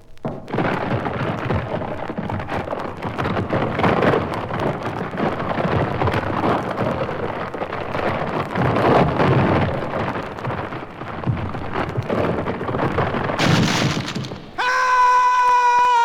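Sound effect of a wooden suspension bridge over a canyon giving way: dense crackling and splintering, ending in a sharp burst of noise. About a second and a half before the end a long, steady pitched cry sets in and slowly falls in pitch, the sound of falling into the chasm.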